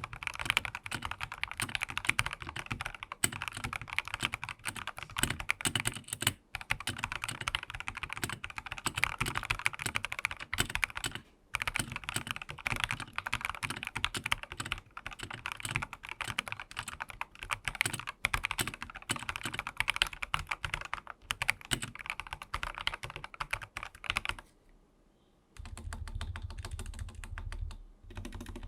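Fast, continuous typing on a Dareu A87 hot-swap mechanical keyboard fitted with SP Star Polaris Grey switches and Akko ASA-profile keycaps, with a dense bottom foam added between PCB and case to cut the hollow echo. There are brief pauses about six and eleven seconds in, and a stop of about a second near the end, after which the typing resumes with a deeper sound.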